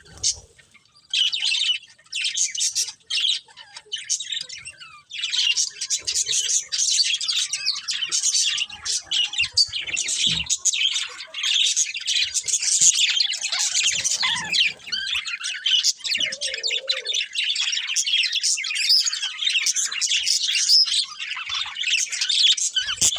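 Budgerigars chirping and chattering in quick, overlapping calls, nearly without a break, with a short lull just before a second in and a brief dip around five seconds.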